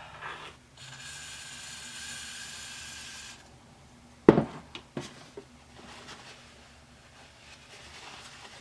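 A steady hiss for about two and a half seconds, then a sharp knock, like an object set down hard, followed by a few lighter clicks.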